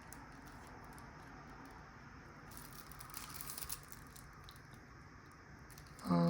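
Faint rustling and small clicks as the lock and its keys are handled, busiest a little before the middle. Just before the end a loud, steady, voice-like hum begins.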